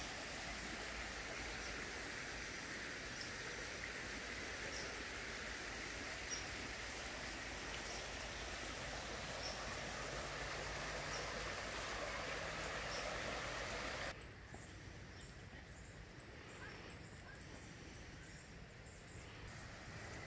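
Steady rush of a small creek's flowing, rippling water, which cuts off suddenly about two-thirds of the way through, leaving a much quieter outdoor background.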